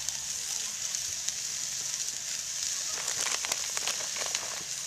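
Steak sizzling on a grill grate over hot charcoal: a steady hiss, with a cluster of crackles and pops about three to four and a half seconds in.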